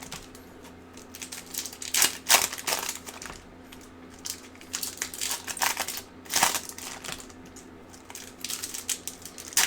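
Scattered light crinkles and clicks from hands handling plastic-wrapped trading card packs, over a faint steady electrical hum.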